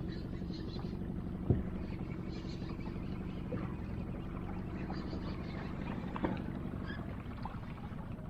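Boat motor running steadily at trolling speed, a constant low hum. Two sharp knocks cut through it, a loud one about a second and a half in and a lighter one near six seconds.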